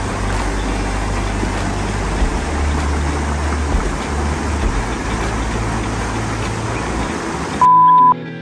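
Spring-fed creek rushing and splashing over a small concrete outlet: a steady rush of water with a low rumble. Near the end it cuts off suddenly to a loud, steady high beep of about half a second, then music begins.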